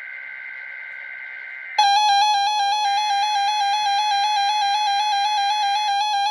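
Emergency Alert System tones on a NOAA Weather Radio weekly test: the steady digital buzz of the SAME data header, then, about two seconds in, a loud electronic alert tone starts over it with a fast pulsing warble.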